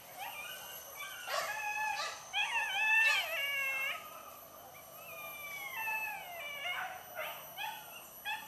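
Hunting dogs yelping and howling on a wild boar chase: long, high, wavering cries, several overlapping in the middle, giving way to short yelps near the end.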